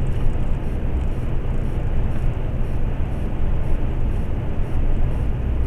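Steady drone of a semi-trailer truck's engine with tyre and road noise at highway cruising speed, heard from inside the cab.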